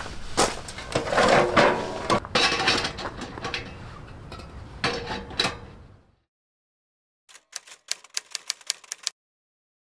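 Irregular metal clanks and rattles as a pellet stove and its stainless chimney pipe are handled and fitted. After a short silence comes a quick run of typewriter key clicks, a typing sound effect, which stops suddenly.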